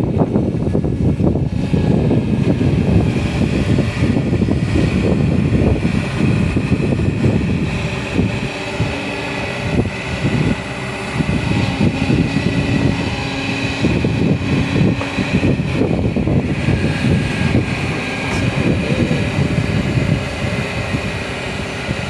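Excavator engine running continuously with a heavy, rough rumble, a little louder in the first eight seconds and then easing slightly.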